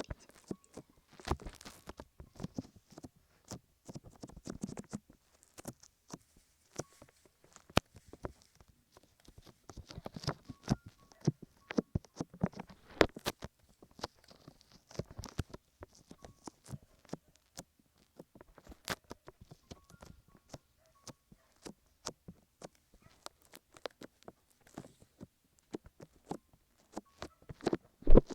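Fingers massaging a microphone's ears with a milky lotion: soft, irregular wet clicks and crackles, quiet throughout.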